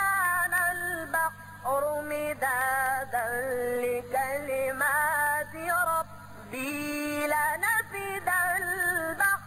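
A single high voice chanting Quranic verses in tajweed recitation, with long drawn-out melodic phrases and short breath pauses between them.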